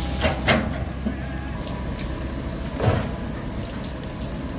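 Komatsu PC195LC excavator's diesel engine running steadily as it digs, with a few sharp knocks; the loudest comes about three seconds in.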